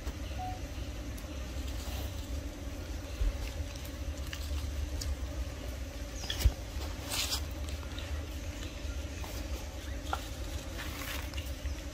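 Outdoor background noise: a steady low rumble and a faint steady hum, with scattered light rustles and taps and one sharper knock about six and a half seconds in.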